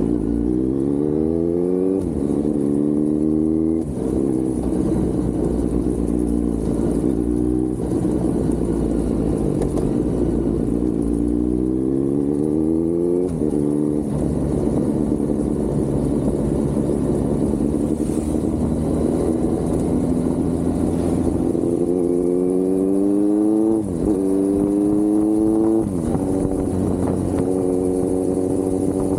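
Kawasaki Z900 inline-four engine under way, pulling up through the gears: its pitch climbs and then drops sharply at each gear change, about five times. There is a long stretch of steady cruising near the middle.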